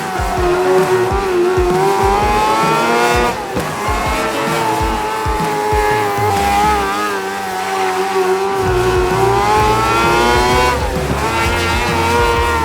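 High-revving racing car engines lapping a small dirt oval, their pitch rising and falling over and over as they accelerate and lift through the turns.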